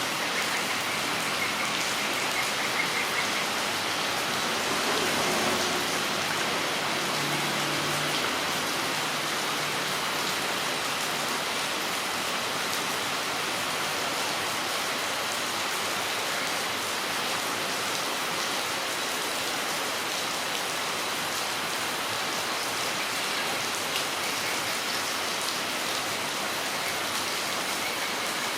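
Steady rain falling on a front yard, a dense even patter of drops hitting the ground and surfaces.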